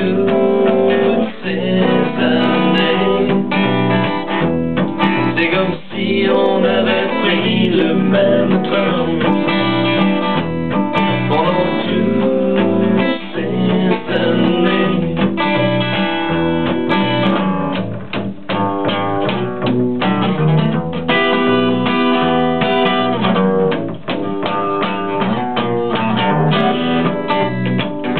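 Live band music without words: acoustic guitar and bass guitar playing an instrumental passage of a pop song.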